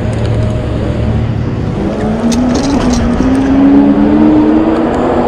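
ENGWE Engine Pro e-bike's rear hub motor whining, rising in pitch for about three seconds as the bike picks up speed, over steady wind and wet-tyre noise.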